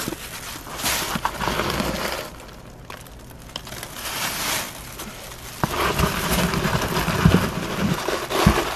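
Shredded paper packing fill rustling as handfuls are pulled from a cardboard box and stuffed into a plastic bag, which crinkles. It comes in bursts with a quieter spell about two to three seconds in, and there are a few soft knocks near the end.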